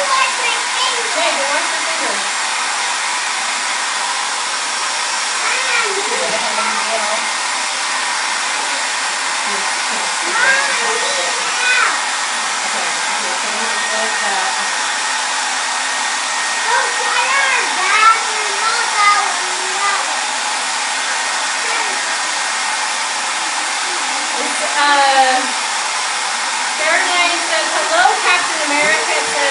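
Handheld hair dryer blowing hot air steadily onto crayons glued to a canvas, melting them, with voices breaking in now and then.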